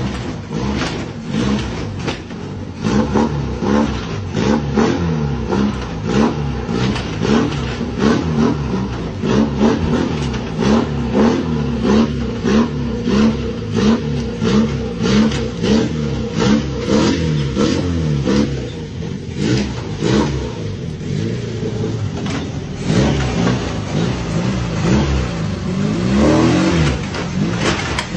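Car engine surging up and down over and over, about once a second, in a jerky rhythm like hiccups.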